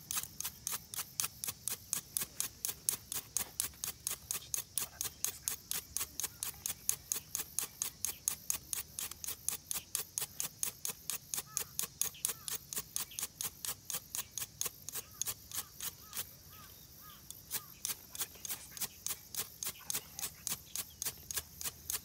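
Ferrocerium fire-starter rod scraped hard and fast with a striker, about four rasping strokes a second with one short pause about three-quarters of the way through, throwing sparks to light tinder.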